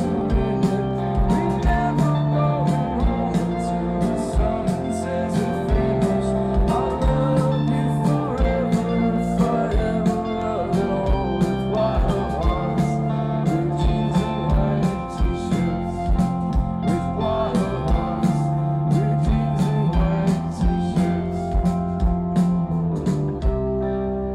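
Rock band playing live, heard from within the audience: electric guitars and bass over a steady drum beat. Near the end the drums stop and a guitar chord rings on.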